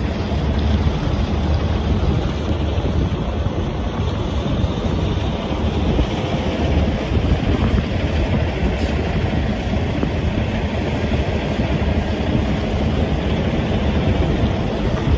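Steady rumble of a semi-truck driving on the highway, engine and tyre noise without letup.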